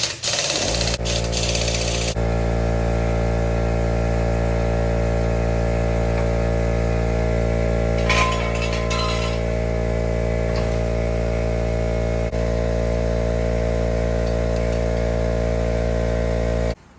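A machine running at a constant speed: a loud, steady hum of even pitch that comes on just under a second in and cuts off abruptly near the end. A brief rattle sounds about halfway.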